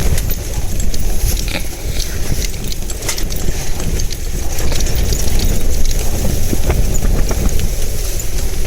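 Strong wind buffeting the microphone in a loud, low rumble, with scattered irregular ticks and knocks over it.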